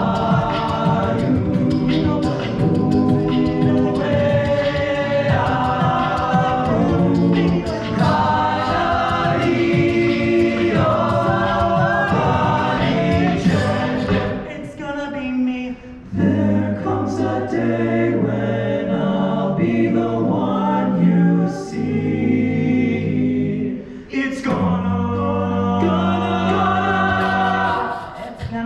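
A mixed-voice a cappella group sings through handheld microphones. In the first half quick sharp clicks keep a beat under the voices. About halfway through the song slows into long held chords over a deep sung bass line.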